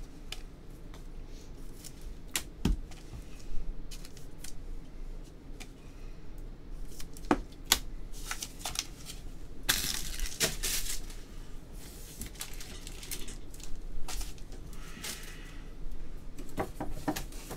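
Scattered light clicks and rustling of a trading card and a clear plastic card case being handled, with a longer rustle about ten seconds in.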